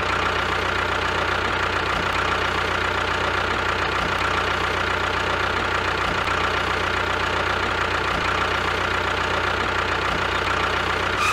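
Tractor engine idling at a steady, even pitch.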